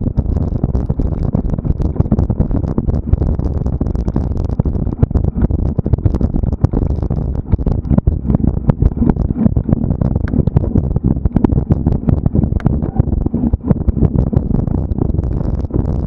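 Steady low rumble of wind and handling noise on a moving camera's microphone, broken by frequent irregular knocks and rattles from the jolting ride.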